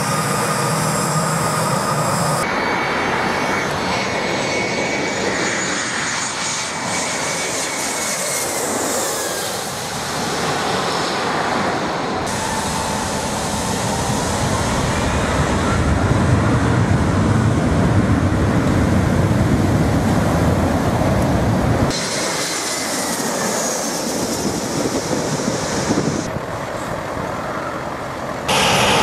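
Jet airliners' turbofan engines running on the ground as they taxi and turn at the runway end: a whine that slides up and down over a steady rush. A deep, loud rumble builds for several seconds in the middle as one airliner turns close by, and the sound changes abruptly at a few cuts.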